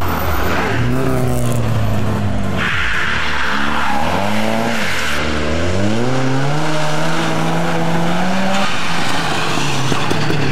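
Historic rally cars' petrol engines revving hard as they pass on a stage, among them a Mk1 Volkswagen Golf, with tyre noise on the road surface. The engine note drops, then climbs steadily for about three seconds under acceleration before cutting off near the end.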